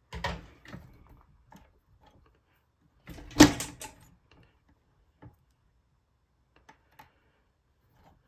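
Handling sounds from an old Bonis fur sewing machine worked by hand: a cluster of light knocks and clicks just after the start, one louder metallic clunk about three and a half seconds in, then a few faint clicks.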